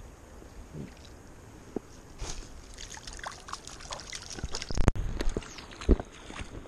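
Water splashing and sloshing close to the microphone, with scattered knocks. The splashing starts about two seconds in and grows busier, with a sharp thump about five seconds in and another loud hit about a second later.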